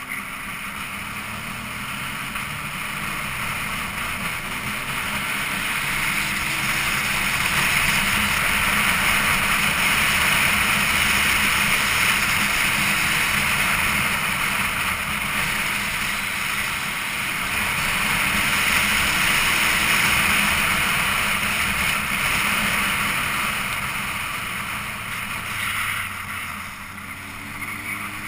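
Wind rushing over the microphone of a motorcycle-mounted camera, swelling through the middle as speed builds and easing near the end. Under it runs the motorcycle's engine hum, which climbs in pitch near the start and again near the end as the bike accelerates.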